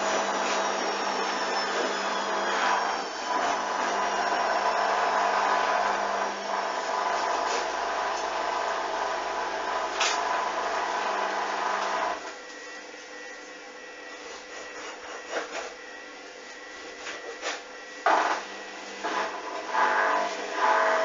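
Hoover washing machine spinning a load that is out of balance. The motor runs loud and steady with a slowly falling whine, then cuts out abruptly about twelve seconds in. The drum goes on more quietly, with occasional knocks and clicks.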